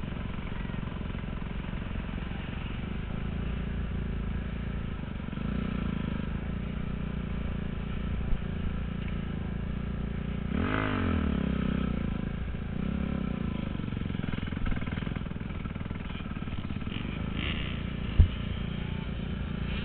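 Motocross bike engine running, heard through a helmet camera. About halfway through, the engine note climbs and then falls over a second or two, and there is a single sharp knock near the end.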